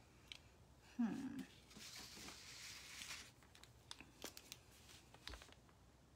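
Faint rustling and a few light, scattered clicks as marker pens are handled and picked up off a wooden craft table, with a brief low hum about a second in.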